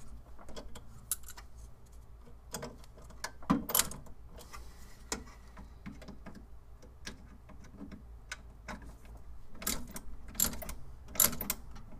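Hand ratchet with a Torx bit clicking and tapping against metal while working the T10 Torx screws that hold a 3D printer's X-axis: irregular light clicks with a few louder knocks.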